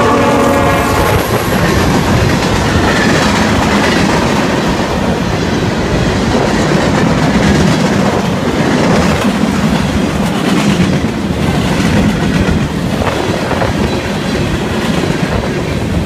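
A Union Pacific diesel freight train passing close by. Its horn fades out about a second in, then the locomotives and freight cars run past with steady clattering wheel-on-rail noise, which ends abruptly.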